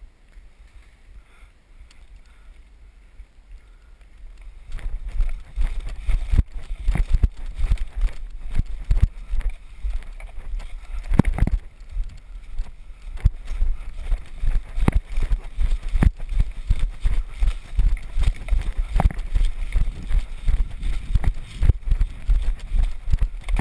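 A person running through forest undergrowth with a body-worn camera: regular heavy footfalls on leaf litter and brush, with the camera and gear bumping and rubbing against the microphone. It starts about five seconds in, after a quieter stretch.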